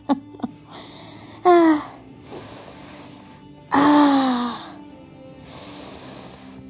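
Two drawn-out wailing cries that fall in pitch, a short one about a second and a half in and a longer one at about four seconds, with breathy hissing between them.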